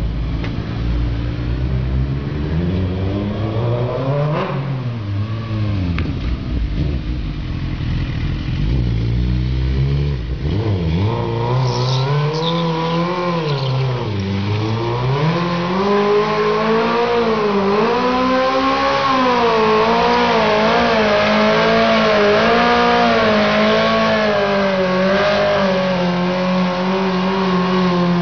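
Suzuki GSX-R sport bike's inline-four engine revved up and down several times, then held at high revs with the pitch wavering as the rear tyre spins in a burnout.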